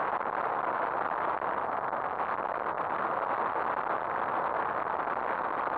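Steady rush of wind and road noise on the microphone of a motorcycle riding at speed. It is an even hiss with no change through the stretch.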